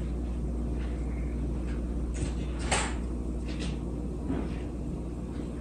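A steady low hum with a few faint knocks and clicks over it, the clearest one close to three seconds in.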